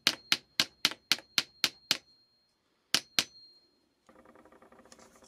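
Light hammer taps driving a reamed wooden dowel collar onto a 3/16 inch steel rod to hold a ball bearing in place, about four taps a second for two seconds, then two more taps near the end.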